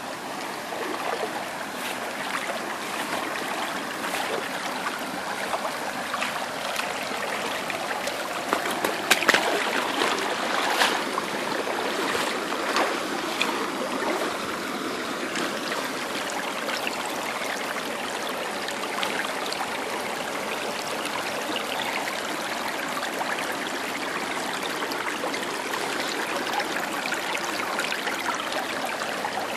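Shallow creek water flowing and trickling over gravel and stones, a steady rush. A few brief, sharper sounds stand out about nine to thirteen seconds in.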